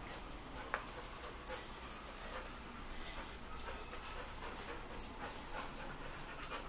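A dog sniffing and panting as it searches for hidden food, with scattered light ticks and rustles.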